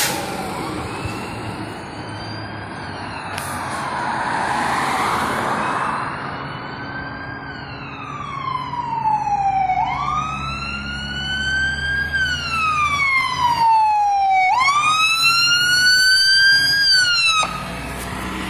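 Fire engine siren wailing, sweeping slowly up and down in pitch and growing louder as the truck approaches, over a low engine rumble. The siren cuts off suddenly near the end.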